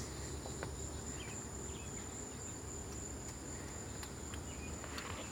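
Steady high-pitched insect chorus, with a few faint light clicks over it.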